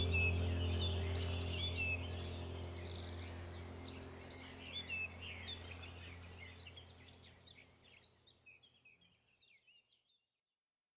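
Many small birds chirping and calling, with quick rising and falling whistles, over a steady low hum. The whole sound fades out gradually to silence near the end.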